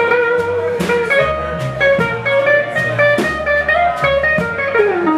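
Live blues band playing: electric guitar, upright bass and drum kit, with a held lead line that wavers and then bends down in pitch near the end.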